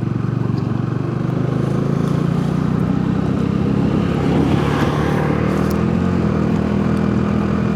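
Motorcycle engine running steadily under way, with wind and road noise. The engine note edges up slightly a couple of seconds in, then holds.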